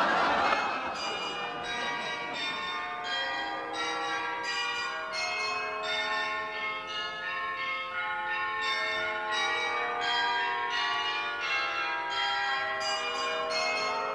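Church bells ringing a peal: many bells of different pitches struck one after another about twice a second, their tones overlapping and ringing on.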